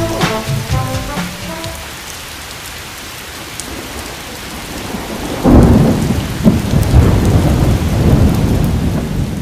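Thunderstorm: steady rain hiss, then a loud rumble of thunder breaks in about halfway through and rolls on with several peaks. A few notes of music fade out at the start.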